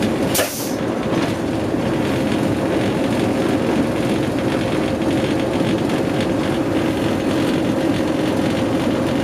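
Class 20 diesel locomotive with an English Electric eight-cylinder engine, running steadily on the move: an even drone with a held tone through it. A brief sharp click comes about half a second in.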